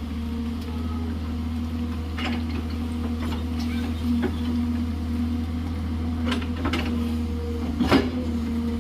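JCB excavator's engine running steadily, with a low drone and a steady hum, and a few short clanks from the machine's work, the loudest near the end.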